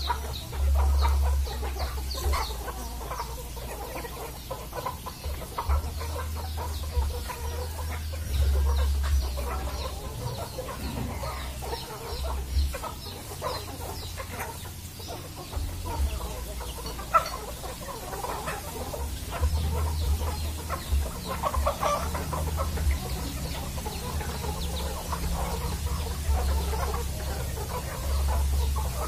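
A flock of free-range Indonesian village chickens (ayam kampung) clucking as they peck at the ground, many short calls overlapping. An uneven low rumble runs underneath, and there is one sharp knock about halfway through.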